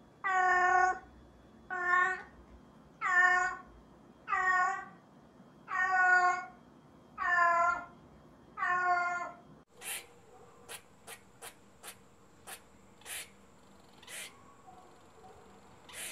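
Persian-type long-haired, flat-faced cat meowing over and over: seven meows about a second and a half apart. The meows stop about ten seconds in, and a run of short, sharp clicks follows.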